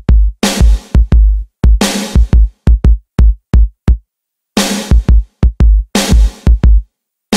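Background music: a hard-hitting electronic drum beat with heavy kick drums and crashing washes, stopping dead for short breaks about four seconds in and near the end.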